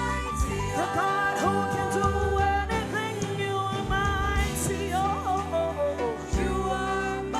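Live gospel worship music: a worship team singing over a band with bass and keyboard.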